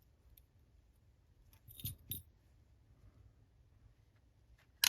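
Small metal padlock parts clinking: two light clicks about two seconds in, then a sharper metallic clink near the end.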